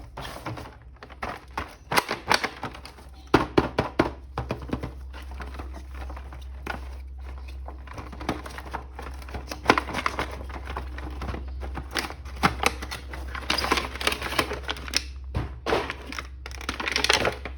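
Plastic toy packaging being handled and opened: many irregular clicks and taps, with stretches of crinkling plastic about two-thirds of the way through and near the end.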